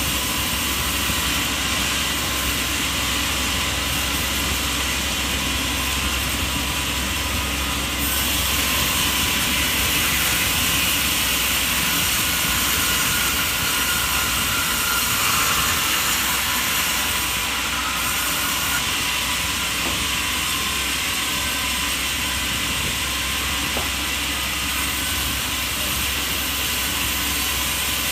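Steady mechanical noise of machinery running, a dense hiss over a low hum, swelling slightly for a stretch in the middle.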